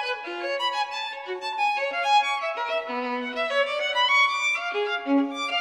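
Instrumental background music: a high melody of quick and held notes, with nothing in the bass.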